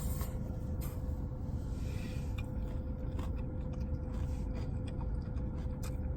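Steady low hum inside a parked car, with faint soft clicks of someone chewing a piece of sushi.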